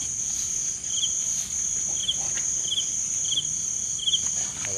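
Night insects such as crickets calling: a steady high-pitched trill, with a second, lower chirp repeating about once a second. A few faint clicks are mixed in.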